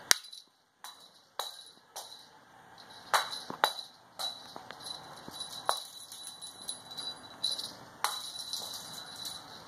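A cat toy jingling in short, sharp clinks at irregular intervals while a cat leaps and swats at it.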